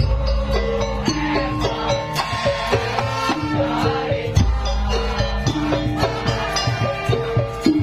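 Music: a repeating melody of held notes over a bass line, with light percussion ticking through it.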